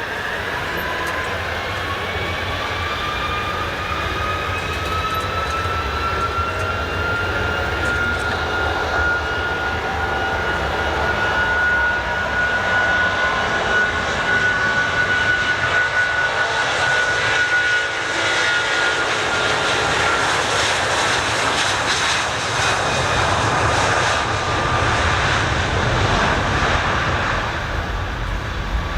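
Jet airliner's engines spooling up for the takeoff roll. A whine rises in pitch over the first ten seconds or so, holds, then fades around twenty seconds in, while the deep engine roar grows louder.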